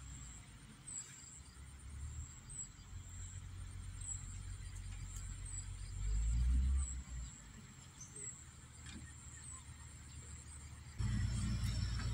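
Outdoor ambience by a pond: a low rumble of wind and handling on the microphone, with a steady high-pitched insect drone and short chirps repeating about every second and a half. The rumble swells briefly about halfway through and grows louder near the end.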